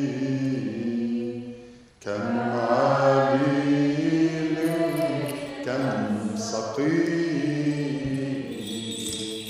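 A slow liturgical hymn chanted in a low male vocal range, with long held notes and a brief pause for breath about two seconds in.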